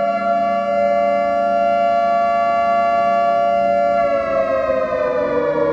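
Civil defense nuclear-attack siren sounding one steady tone rich in overtones, which starts to slide slowly down in pitch about four seconds in as it winds down.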